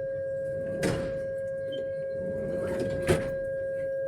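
Metro train's door-closing warning tone: one steady, single-pitch beep held unbroken while the doors close. Two sharp knocks cut through it, about a second in and again about three seconds in.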